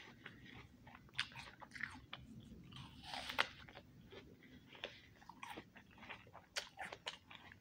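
A person biting into and chewing a crisp apple: a run of short, sharp crunches, with a louder crunch about three seconds in.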